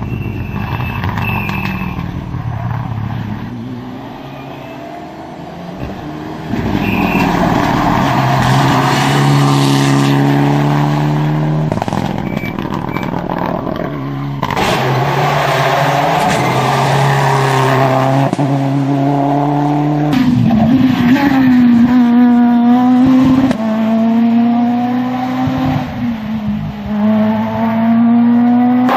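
Rally car engines driving hard through a stage, revving high and climbing in pitch through the gears, with sudden drops in pitch at the gear changes.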